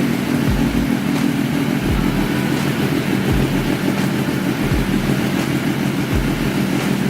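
Benelli TNT 1130's inline-three engine idling steadily through its rebuilt carbon-fibre exhaust with a larger outlet, held at low revs on its first start of the year.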